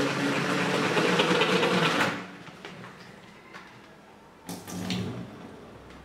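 Plastic salad spinner whirring as its basket spins, throwing rinse water off freshly washed leafy greens to dry them; the whirring stops abruptly about two seconds in. Later a brief plastic knock as the basket is handled.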